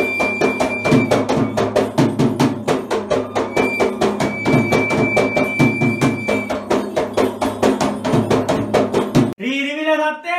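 Fast hand drumming on a yak bera, the laced double-headed drum of Sri Lankan thovil rituals, in a dense, even rhythm, with a thin high note held twice for a few seconds. About nine seconds in, the drumming stops abruptly and a man begins to chant.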